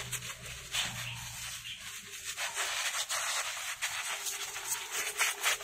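Garden sprayer misting liquid foliar fertilizer onto mulberry leaves: a hiss of spray with a crackling patter of droplets on the leaves, swelling about a second in.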